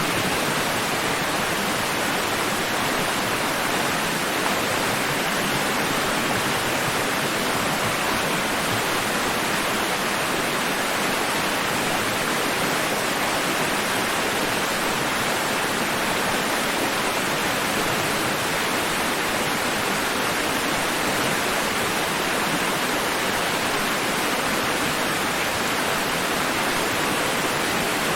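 Steady rushing water: an even, unbroken hiss with no swells, surges or breaks.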